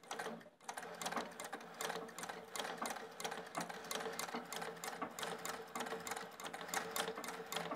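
Singer 411G sewing machine driven by a foot treadle, stitching free-motion embroidery. After a brief pause it starts about half a second in, then runs a fast, even rhythm of needle strokes over a steady hum.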